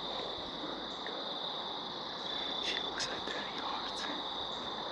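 Evening insect chorus of crickets, a steady high-pitched trill that runs on without a break.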